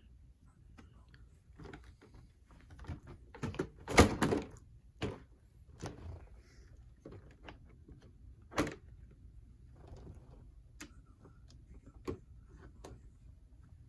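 Scattered clicks and knocks from the plastic body and chassis of an Axial SCX10 III Gladiator RC crawler being handled and tilted. There is a sharp knock about four seconds in and another a little before nine seconds.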